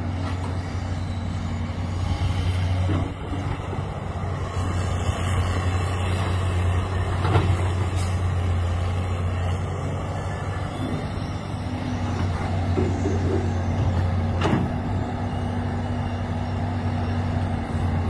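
Caterpillar E200B hydraulic excavator's diesel engine running steadily, with a few sharp knocks from the bucket and dirt, one about seven seconds in and another near fifteen seconds.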